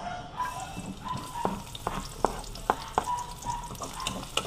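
Chopped garlic sizzling in hot oil in a wok, the sizzle starting about half a second in. A spatula taps and scrapes against the wok several times as the garlic is stirred.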